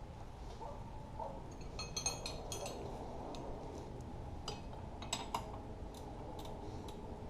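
Light metallic clinks and clicks of hand tools on a side-by-side's front suspension as a bolt is worked loose: a quick cluster about two seconds in, then a few scattered clicks.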